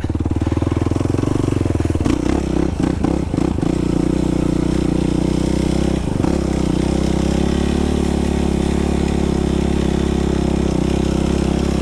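Yamaha YFZ sport quad's engine running under throttle. Its note is uneven over the first few seconds, with a few knocks, then it holds steady.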